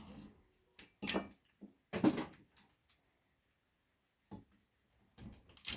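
Scattered short clicks and knocks of hands handling and prying at a circuit board while taking it apart, with quiet gaps between. The loudest knock comes about two seconds in, and a small cluster of clicks comes near the end.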